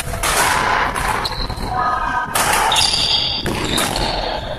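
Badminton play in an echoing sports hall: repeated sharp racket strikes on the shuttlecock and quick footwork on the wooden floor.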